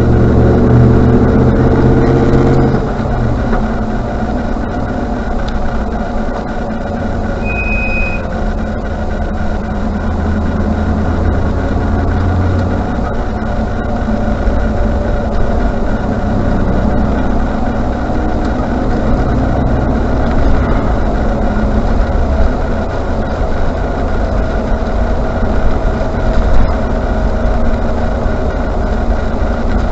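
Range Rover Classic on the move: engine and road noise, rising in pitch for the first couple of seconds. One short, high squeal from the brakes comes about eight seconds in.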